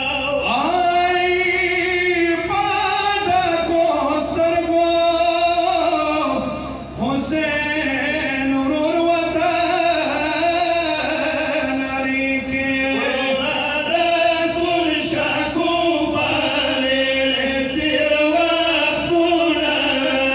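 Male voices singing a Pashto matam nauha, a Shia mourning lament, in long held lines through microphones and a PA.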